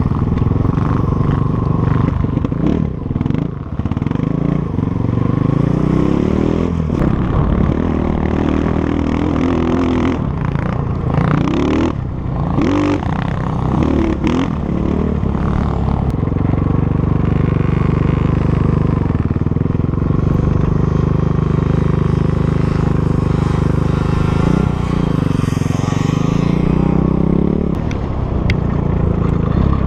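Dirt bike engine running close up, revving up and falling back again and again as it is ridden. Clattering and knocks from the bike bouncing over rough ground come between about 6 and 14 seconds in.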